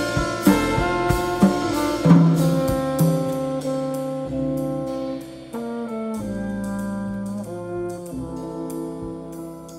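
Small jazz group of trombone, vibraphone, guitar, double bass and drums playing. After about two seconds the drum groove stops and the band holds long sustained chords, with trombone prominent, that slowly fade down near the end.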